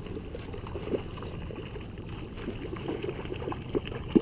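Water lapping and trickling against a plastic kayak hull, with scattered small knocks and a sharp knock near the end.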